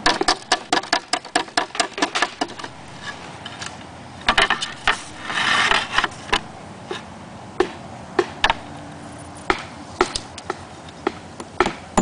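Slate hammer tapping roofing nails into a slate, sharp ringing taps spaced irregularly and quickening near the end, with slates clacking against each other and a brief scrape about five seconds in.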